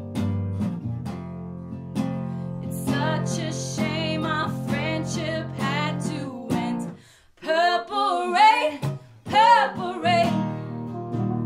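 Live acoustic music: a nylon-string classical guitar strummed steadily over sustained keyboard chords, with a woman singing from about three seconds in. About seven seconds in, guitar and keyboard stop and she sings alone for a couple of seconds, with vibrato, before they come back in.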